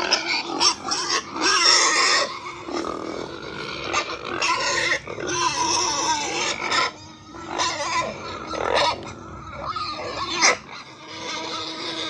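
Pig grunting and squealing in a continuous, irregular run of calls. The longer calls last up to about a second, and a sharp loud call comes near the end.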